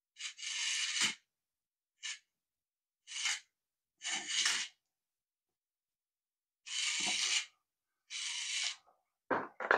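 Small gear motor of a plastic solar robot kit whirring in about seven short raspy spurts, stopping and starting as the Beetle-bot struggles to walk under lamp light.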